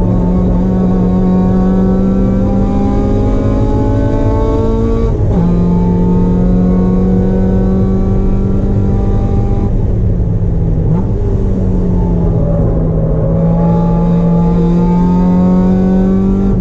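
Mazda Miata race car's four-cylinder engine heard from inside the stripped cabin at full throttle on track, revs climbing steadily. It drops sharply on an upshift about five seconds in. It eases briefly around ten seconds, then pulls hard again until another shift right at the end.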